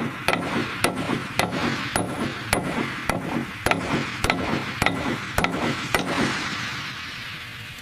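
Hammer blows, about two a second, each a sharp strike with a short ring. The blows stop about six seconds in, leaving a fading wash of noise.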